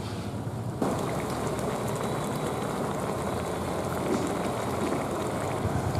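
Turmeric curry broth full of micro eels boiling in a wok: a dense, steady bubbling and sizzling that gets louder about a second in.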